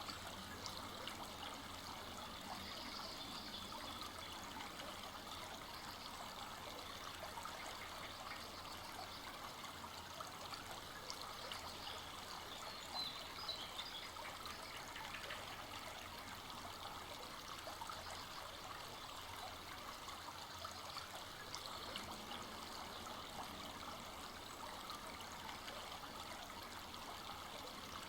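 Full-flowing forest stream running steadily, its water trickling without a break.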